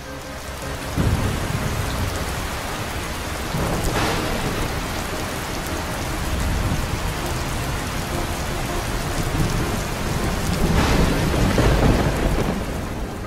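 Thunderstorm: steady rain with rolls of thunder, one about a second in, a sharp crack about four seconds in, and a longer roll near the end.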